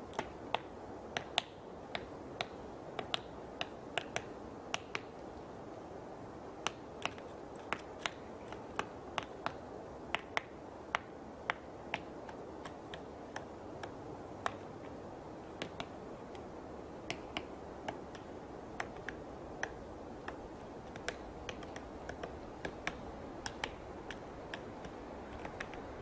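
Woodpecker pecking at wood: sharp single taps at an irregular pace, about one or two a second with short pauses, over steady background noise.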